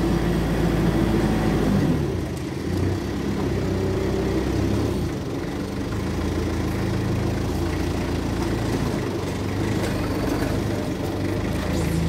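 TCM forklift engine running as it carries a heavy crate; its note drops about two seconds in and then runs steadily.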